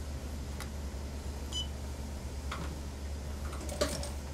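Computerized industrial sewing machine idling with a low steady hum. It gives one short electronic beep about one and a half seconds in, and there are a few light clicks, the sharpest near the end.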